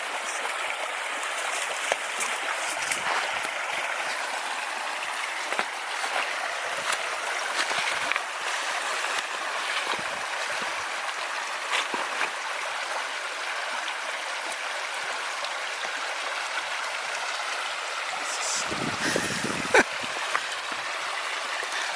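A creek running steadily, with scattered small clicks and knocks and a brief low rumble near the end.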